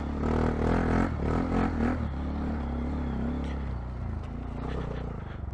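Honda Monkey 125's single-cylinder four-stroke engine running at low speed on a muddy trail, the engine note shifting in the first couple of seconds, then settling and getting quieter toward the end.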